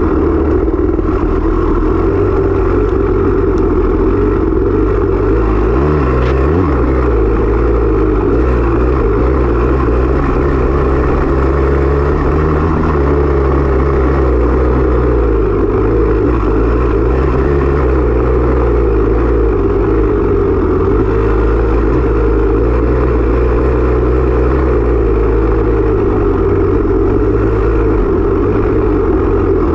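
Off-road dirt bike engine running hard, its pitch rising and falling several times as the throttle opens and closes.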